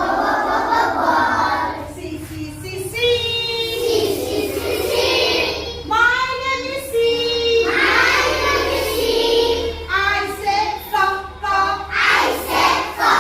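A group of young children singing a letter-sounds (phonics) song together, with held sung notes throughout.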